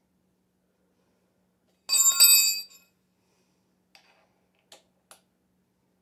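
Metal striking metal once, about two seconds in, ringing briefly with a bell-like tone, followed by three faint clicks.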